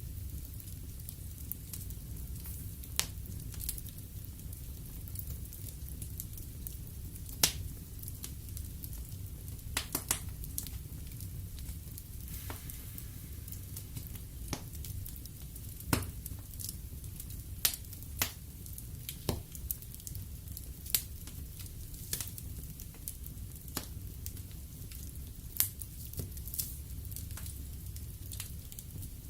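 Wood fire burning in a fireplace: a steady low rumble of the flames with scattered crackles and sharp pops of the burning logs, a few louder than the rest.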